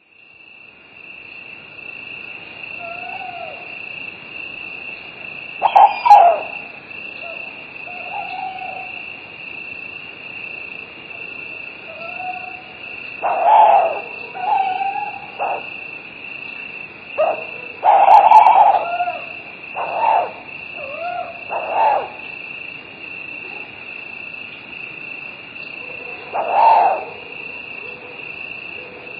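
Night ambience: crickets chirring steadily at a high pitch, with about a dozen short calls from a night animal scattered over it. The calls rise and fall in pitch, and the loudest come about 6, 18 and 27 seconds in.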